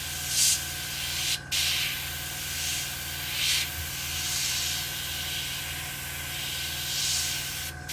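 Airbrush spraying paint with a steady hiss that swells in several short surges as the trigger is worked, breaking off briefly about a second and a half in and again near the end; the spray is laying weathering around the gun areas of a scale model aircraft.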